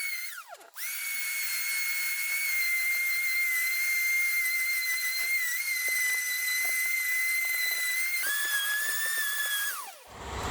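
Electric orbital sander whining at a steady high pitch while it sands old sticky varnish off a wooden table top. Near the start it briefly winds down and comes straight back up. Late on it drops to a lower pitch, then winds down to a stop just before the end.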